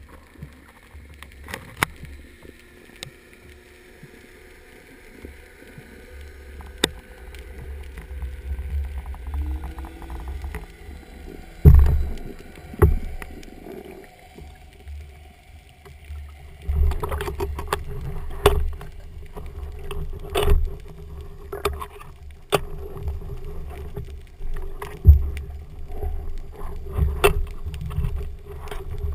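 Underwater sound picked up by a camera in its housing during a freedive: a low, muffled rumble with scattered sharp clicks and knocks. It grows louder about 17 seconds in, when a steady hum joins it.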